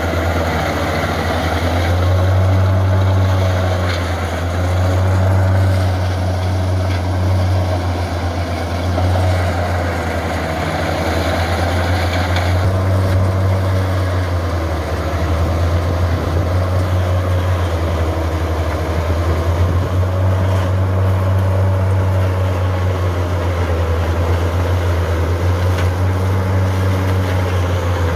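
Valmet tractor's diesel engine running steadily under load, powering a PTO-driven forage chopper that is chopping dry corn stalks into feed. A steady low engine hum, with the chopper's whirring tone wavering up and down as bundles are fed in.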